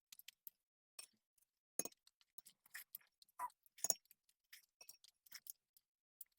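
Close-miked eating sounds: soft chewing and mouth clicks, irregular and faint, with two sharper clicks about two seconds and four seconds in.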